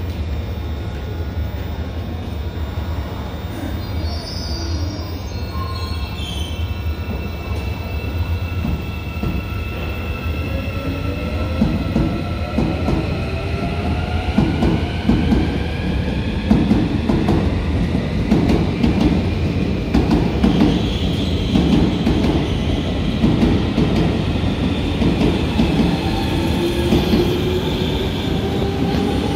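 Korail electric multiple-unit train on Seoul Subway Line 1 pulling away from the platform: the motor whine climbs steadily in pitch as it gathers speed, over a low rumble and the clatter of wheels that grows louder about halfway through.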